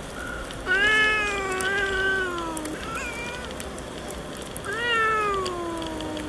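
Cat yowling: two long drawn-out calls of about two seconds each, sliding slowly down in pitch, with a short call between them.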